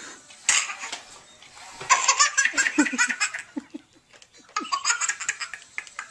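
A baby laughing hysterically in three bouts: a short one about half a second in, a long loud one from about two seconds in, and another near the end.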